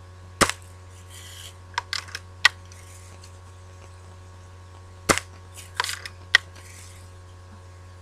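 Daisy Red Ryder lever-action BB gun firing twice, about five seconds apart. After each shot comes a short run of clicks and a rasp as the lever is worked to cock it again.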